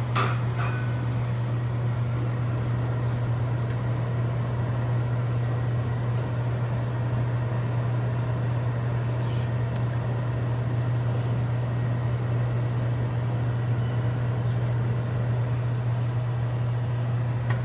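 Microwave oven running: a steady low hum, with a few faint ticks here and there.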